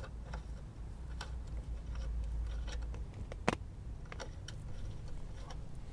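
Scattered small clicks and taps of cable plugs and connectors being handled, with one sharper click about three and a half seconds in. A low wind rumble lies underneath and drops away about halfway through.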